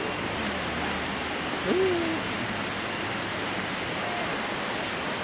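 Steady rushing noise of a waterfall. About two seconds in, a short call from a person's voice rises and then settles.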